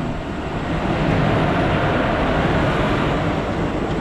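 A locomotive-hauled passenger train passing close by on the adjacent track: the steady rush and rumble of its coaches and wheels on the rails, loud and swelling about a second in.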